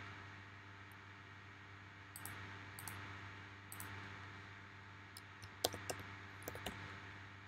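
A few scattered, faint clicks of a computer keyboard and mouse, over a steady low hum.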